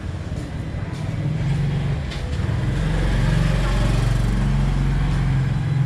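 Street traffic: a motor vehicle's engine running close by with a low, steady hum that grows louder over the first few seconds and then holds.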